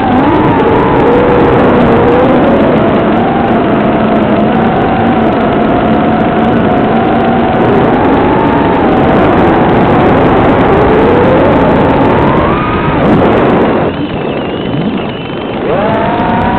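FPV racing quadcopter's brushless motors and propellers whining at high throttle, the pitch wavering up and down as the pilot works the throttle. Near the end the whine drops away briefly as the throttle is cut, then surges back up.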